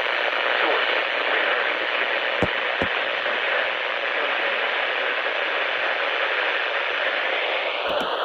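Weather radio receiver hissing with steady static between broadcasts, with two faint clicks about two and a half seconds in and two more near the end.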